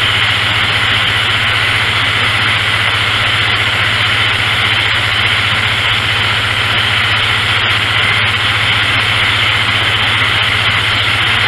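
Two-cylinder gasoline engine of a Miller Legend 200LE welder/generator running steadily, with an even hum that does not change. It keeps running after a tune-up of new spark plugs, points, condenser and coil, done because it would not stay running.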